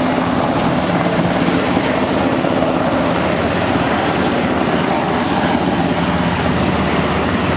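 Two JASDF UH-60J Black Hawk rescue helicopters flying low in formation: loud, steady rotor and twin-turboshaft engine noise.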